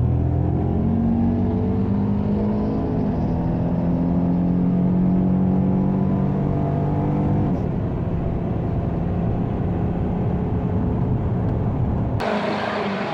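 A car engine running at a fairly steady pitch, shifting slightly a few times. About a second before the end it cuts abruptly to a higher hissing sound, the start of tires squealing.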